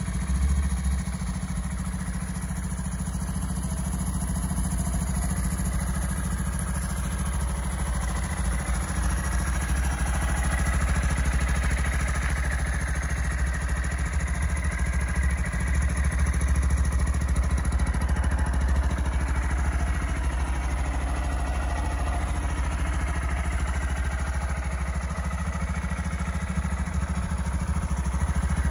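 Honda Monkey 125's air-cooled single-cylinder four-stroke engine idling steadily.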